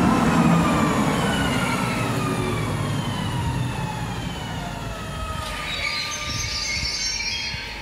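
Pågatåg electric multiple-unit train moving along the platform, its traction motors whining in several tones that fall steadily in pitch as it slows, with the rumble fading. A high squeal sets in about five and a half seconds in, likely from the wheels or brakes as it comes to a stop.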